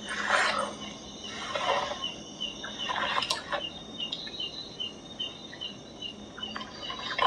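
Night-time forest ambience: a steady high insect-like drone, with a run of short, evenly spaced chirps at about three a second starting a couple of seconds in. There are a few brief rustling noises in the first few seconds.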